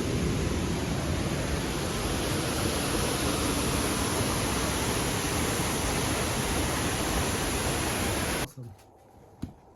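Waterfall rushing: a steady, loud wash of water noise that cuts off suddenly near the end.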